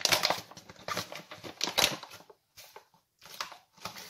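Plastic sweetener pouch crinkling and rustling as it is opened and handled: a busy run of sharp crackles, a short lull, then a few more crackles near the end.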